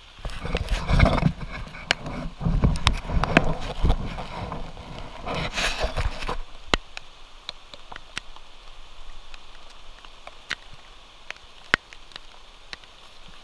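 Rain falling, with scattered sharp drips tapping close by; for roughly the first six seconds it is buried under heavy knocking and rubbing as the GoPro is handled.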